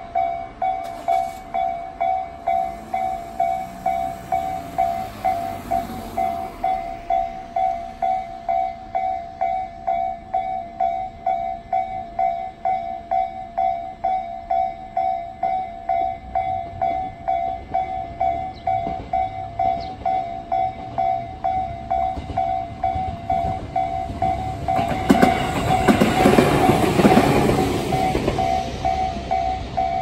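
Japanese electronic level-crossing bell of the Tobu Tojo type ringing in a quick, even rhythm. A louder rumble with clunks swells near the end as something passes over the crossing.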